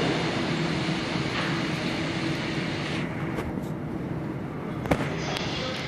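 Busan Metro Line 3 train pulling away from the platform into the tunnel, its rolling rumble slowly fading. A single sharp click comes near the end.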